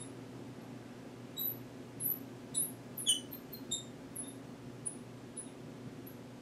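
Marker squeaking on a lightboard's glass as lines and letters are written: a string of short, high-pitched squeaks a fraction of a second apart, over a low steady room hum.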